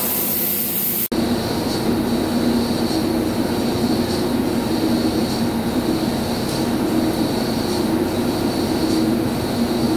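Steady machine-shop noise from heavy machinery running: a hiss that cuts off abruptly about a second in, then a continuous drone with a low two-note hum that swells and fades about once a second.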